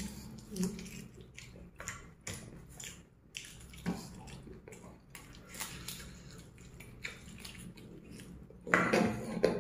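A person biting into and chewing fried chicken: scattered wet mouth smacks and small crunches, with a louder burst of noise near the end.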